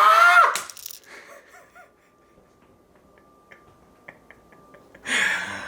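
A man's short, high-pitched cry rising in pitch at the start. A few faint clicks follow, then a loud breathy rush of noise about five seconds in.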